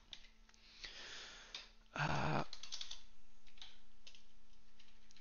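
Computer keyboard keys clicking in scattered keystrokes, with a short, louder rustling noise about two seconds in.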